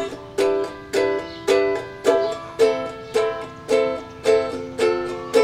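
Ukulele strummed in an even rhythm, about two chords a second, each strum ringing and fading before the next.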